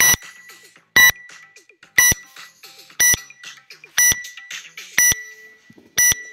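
Phone workout timer's countdown beeps: a short, high beep exactly once a second, seven in all, counting down to the start of the workout.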